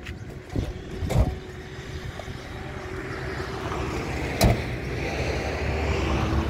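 A motor vehicle running and growing gradually louder, with a couple of knocks in the first second or so and one sharp knock about four and a half seconds in.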